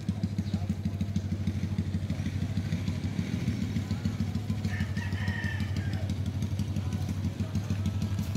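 An engine idling with a steady low throb, and a rooster crowing once about five seconds in.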